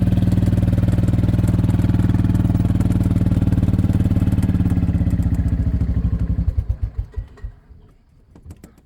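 A vehicle engine idling steadily, then switched off about six seconds in, its firing slowing into separate pulses as it stops. A few faint clicks follow.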